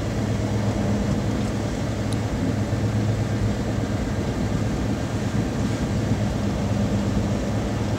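A steady low hum, like an idling engine, with a faint rushing noise over it.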